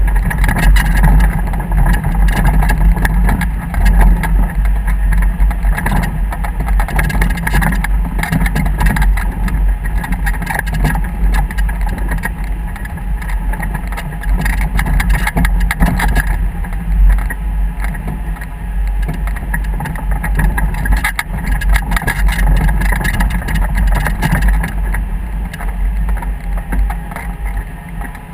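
A motor running steadily under way, with a loud, continuous low rumble.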